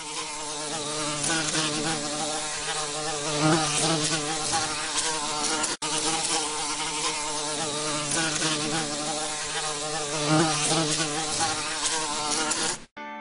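Buzzing of a swarm of insects, a steady wavering drone with a hiss over it. It breaks for a split second about six seconds in and cuts off suddenly near the end.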